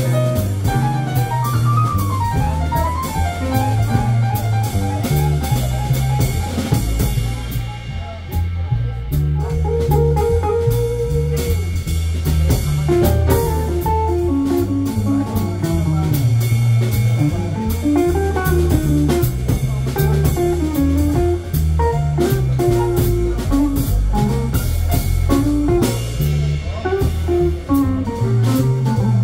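Live jazz combo playing: a hollow-body archtop guitar carries a melody line over grand piano, walking double bass and a drum kit with cymbals.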